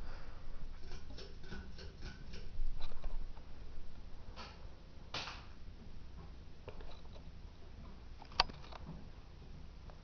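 Hunter Low Profile II ceiling fan running, a fan with a bad wobble: a low steady hum with light ticking and clicking. There is a quick run of ticks early on, a short noisy burst about five seconds in, and a single sharp click a little after eight seconds.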